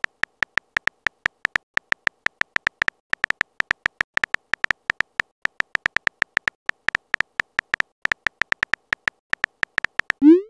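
Keyboard tap sound effect of a texting-story chat animation: rapid short tapping clicks with a slight beep to them, about five a second at an uneven pace, one per typed letter. Right at the end a short rising blip starts, the message-sent sound.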